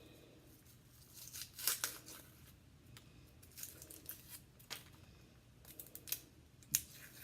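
An onion being handled and peeled: dry papery skin crinkling and tearing in short bursts, with a few sharp clicks, the loudest near the end.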